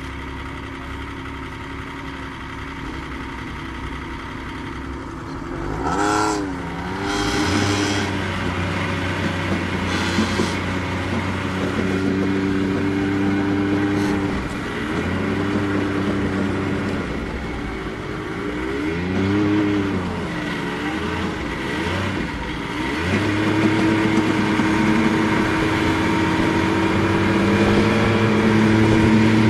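Snowmobile engine idling, then revving up about six seconds in as the sled pulls away. It runs on under throttle with its pitch rising and falling as speed changes, growing louder toward the end.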